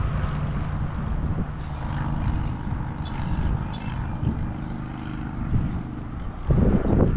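A steady engine drone with a low, even hum that fades a little after about six seconds, with wind rumbling on the microphone near the end.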